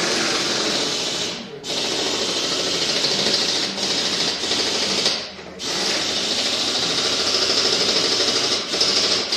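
Rapid mechanical rattling from a tool turning the new oil filter on. It comes in three runs of a few seconds each, with short breaks about a second and a half in and about five seconds in.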